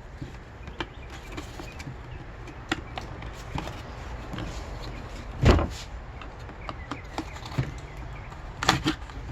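Small screwdriver clicking and scraping against the plastic housing of a Black & Decker 40-volt string trimmer as the housing is pried apart. Scattered light clicks, one loud knock about halfway through, and a quick cluster of clicks near the end.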